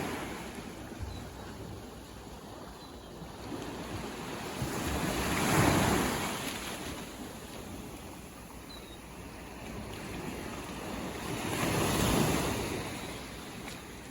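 Ocean waves breaking and washing up the shore, two waves swelling up and fading away about six seconds apart, the second near the end.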